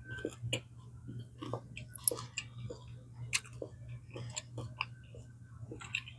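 Close-up chewing of food: irregular wet mouth clicks and small crunches, with a sharper crackle about two seconds in. A steady low hum runs underneath.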